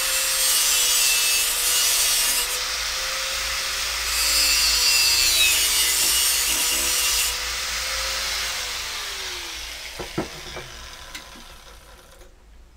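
Angle grinder grinding a steel workpiece clamped in a bench vise, heaviest in two long passes, then switched off and winding down with falling pitch about nine seconds in. A few sharp knocks follow.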